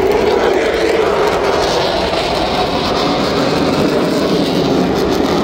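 Republic of Singapore Air Force F-16 fighter jets flying past overhead: loud, steady jet engine noise with a low tone that drifts slightly down.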